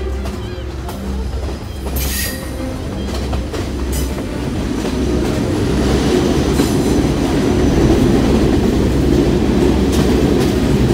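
Passenger train running along the line, its wheels and carriage noise heard from on board and growing louder, with a brief high-pitched screech about two seconds in.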